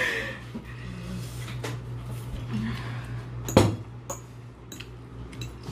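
A few scattered clicks and knocks of objects being handled, the loudest a single knock about three and a half seconds in, over a steady low hum.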